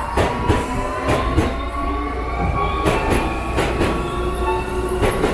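Electric train running past, its motor whine rising slowly in pitch as it speeds up. Its wheels clack over a rail joint in quick pairs about every two seconds.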